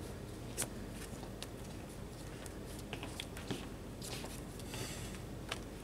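Quiet room tone with a handful of light clicks and taps as sleeved trading cards are laid down and handled on a cloth playmat.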